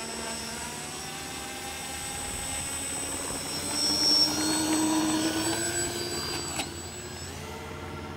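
Twin electric motors of a radio-controlled Boeing 247 scale model, each driving a three-blade propeller, whining at full power on the takeoff run. The whine grows to its loudest about four seconds in as the model passes close, then falls away.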